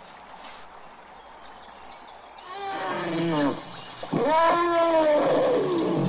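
Elephant trumpeting twice: a short call that falls in pitch, then a louder, longer call that rises and falls.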